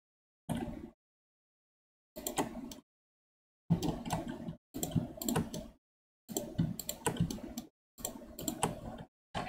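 Computer keyboard and mouse clicking in about seven short clusters of rapid keystrokes, each cut off to dead silence between them.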